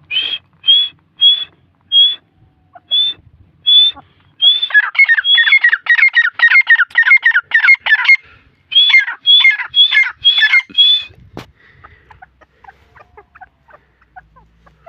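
Grey francolin calling: a series of loud, high single notes about every half second, then a fast run of repeated notes at about five a second, then several more single notes before it stops a few seconds before the end.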